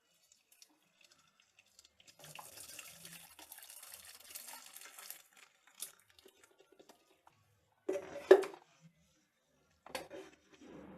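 Hot vegetable water being poured out of an electric kettle through a strainer, splashing for about three seconds, followed by a couple of sharp knocks of kitchenware about eight seconds in and another near the end.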